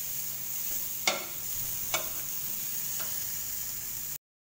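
Carrot strips sizzling as they stir-fry in a stainless steel wok, with a steady frying hiss. A metal spoon clinks against the pan about a second in and again about two seconds in, more faintly near three seconds. The sound cuts off suddenly near the end.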